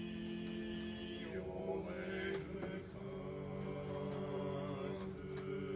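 Slow church chant: long held sung notes that step to a new pitch every second or so.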